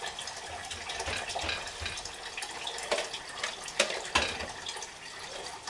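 A spoon scraping and a plastic food container clicking and knocking as ground meat is scooped out and the snap lid is put back on, with sharp clicks about three and four seconds in. A steady watery hiss runs underneath.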